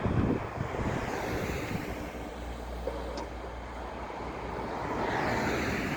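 ZSSK 'Dunihlav' diesel multiple unit passing, its diesel engine a steady low drone, with wind buffeting the microphone at the start.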